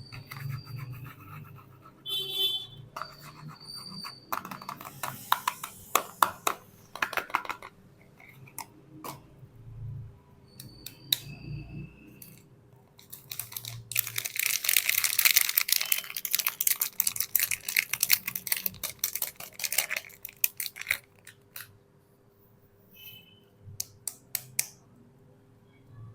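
Soap packaging being handled and unwrapped: scattered clicks and short bursts of crinkling and tearing, with a long, dense stretch of rustling and scraping about halfway through. A faint steady hum sits underneath.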